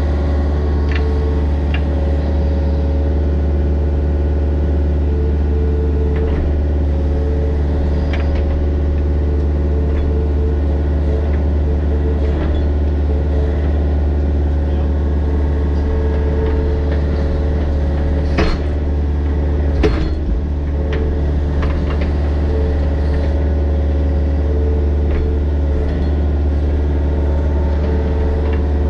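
Mini excavator's diesel engine running steadily with a deep hum, with a few faint ticks and two sharp knocks about a second and a half apart, about two-thirds of the way through.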